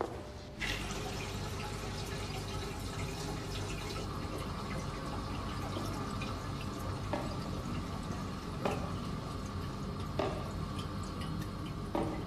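Water running steadily into a washroom sink, starting suddenly about half a second in, with single drips falling about every second and a half. The sound has the echo of a small tiled room.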